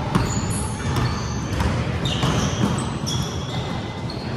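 Basketball dribbled on a hardwood gym floor, irregular sharp bounces, mixed with short high squeaks of sneakers on the court.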